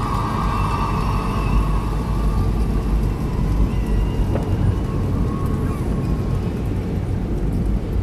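Steady road and engine rumble heard from inside a car driving on a wet road. A faint held high tone sits over it for the first few seconds, and a shorter one comes around the middle.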